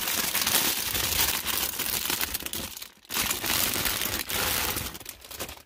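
Clear plastic packaging bag crinkling and rustling as hands open it and work a plush toy out, with a brief break about three seconds in.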